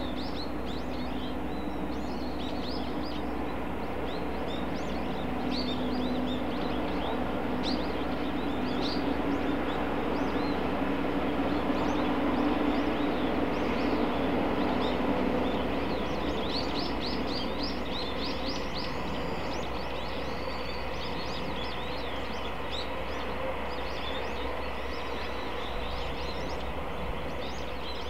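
Small birds chirping again and again over a steady distant hum that swells a little towards the middle and fades out.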